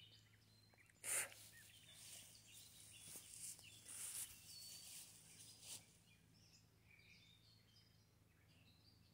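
Faint rustling of steps through grass and brush in the first half, with one sharper rustle about a second in. Faint bird chirps follow near the end.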